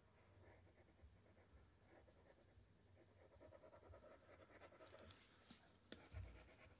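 Near silence with faint scratching from erasing strokes being dragged on the computer's input device, and a couple of soft clicks near the end.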